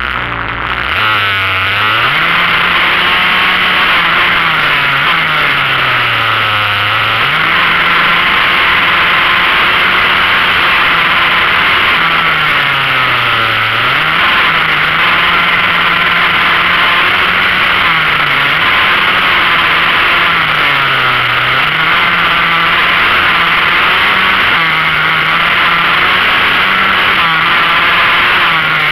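Motorcycle engine heard onboard on a circuit lap, its pitch climbing, holding high, dropping as it slows and climbing again several times. A steady rush of wind on the microphone runs under it.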